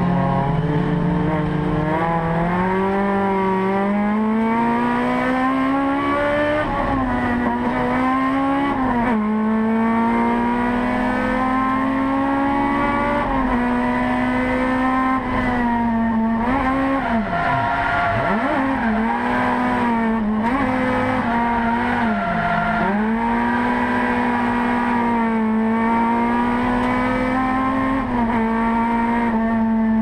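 Toyota AE86 drift car's engine heard from inside the cabin, held at high revs, its pitch rising and falling as the driver works the throttle. It briefly drops sharply in pitch a few times, most deeply a little past halfway, as the throttle is lifted or a gear is changed.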